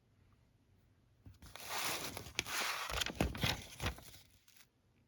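Paper pages of an instruction manual rustling and crinkling as they are handled and turned, starting about a second in and dying away near the end, with a couple of soft low knocks from handling.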